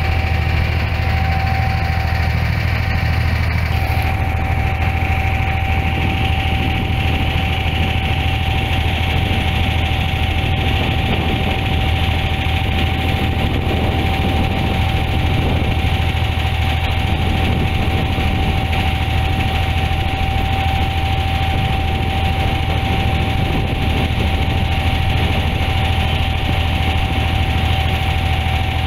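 Boat engine running steadily under way: a low hum with a thin steady whine above it, over the rush of water along the hull.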